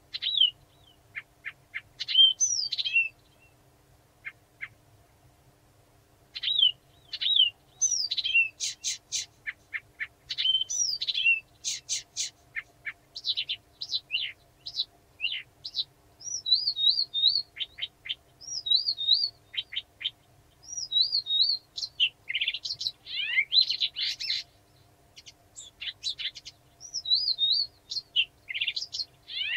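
Blyth's reed warbler singing: a slow string of varied whistled and chattering phrases, each repeated a few times, mixed with short clicking notes. There is a pause of about three seconds near the start, after which the song runs on almost without a break.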